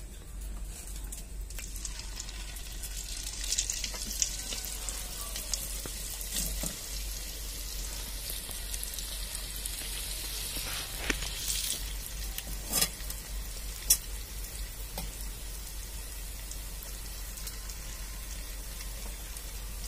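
Batter-coated cauliflower florets sizzling as they deep-fry in hot oil. The hiss is strongest for several seconds as florets go into the oil, then settles to a softer steady sizzle. A few sharp clicks come about midway.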